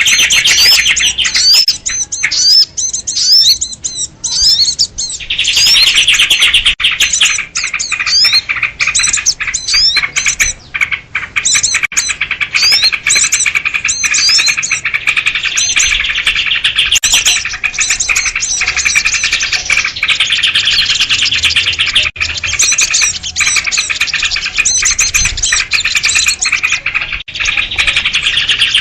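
A noisy flock of small birds, sooty-headed bulbuls among them, chattering and scolding in a dense, rapid mix of high calls. This kind of bird commotion is played as a lure to draw in small wild birds. The calls thin out briefly a couple of seconds in, then carry on.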